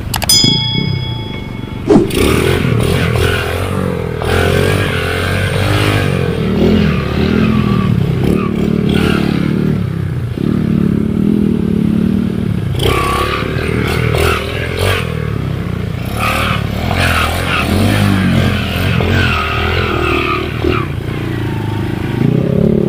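Dirt bike engine running and revving up and down as the bike rides through a shallow, rocky river, with water splashing and clattering knocks. A short bell-like chime sounds at the very start, and a sharp knock comes about two seconds in.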